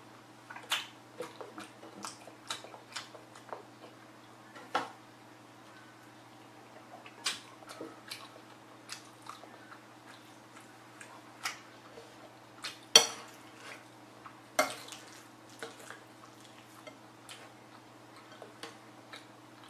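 Close-up mouth sounds of a person chewing and eating black bean sauce rice: a scatter of short wet clicks and smacks, the loudest about 13 seconds in, with light clinks of a metal spoon against the bowl. A faint steady low hum runs underneath.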